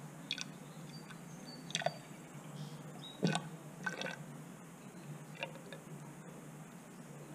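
Fork oil poured from a plastic measuring cup into a motorcycle fork tube: faint, with a handful of short drips and glugs, the loudest a little past the middle, over a steady low hum.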